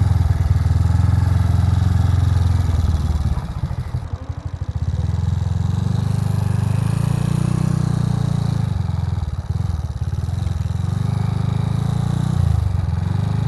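Kawasaki ZX130's rebuilt four-stroke single-cylinder engine pulling away and accelerating under load, with a deep exhaust note that eases off briefly about four seconds in and again near ten seconds. It revs fairly high as it moves off, which the owner puts down to the newly fitted centrifugal clutch slipping while it beds in.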